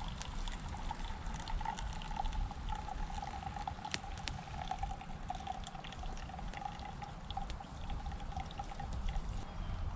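Just-boiled water poured from a stainless pot through a pour-through coffee dripper into a cup: a steady trickling stream that stops about a second before the end.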